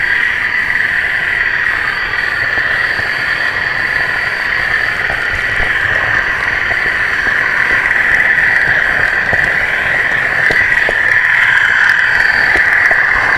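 Sound unit in a 4mm-scale model Class 40 diesel locomotive playing the engine running sound, a loud, steady high-pitched drone, with scattered faint ticks.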